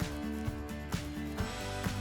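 Background music with a steady beat, about two beats a second, and guitar.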